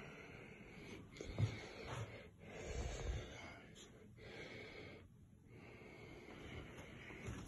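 A person's breathing close to the phone's microphone, in breaths about a second long, with a few soft thumps in the first half.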